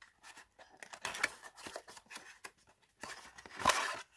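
Cardboard and paper packaging handled by hand: rustling and scraping in uneven bursts, with a louder scrape about a second in and the loudest one near the end.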